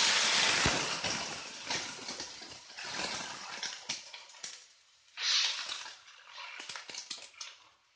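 Water poured into a hot wok of frying shallots, garlic and chili hisses and sputters loudly as it hits the oil, then dies down over a few seconds. A second loud burst of sizzling comes about five seconds in. A metal spatula clinks and scrapes against the wok as the mixture is stirred.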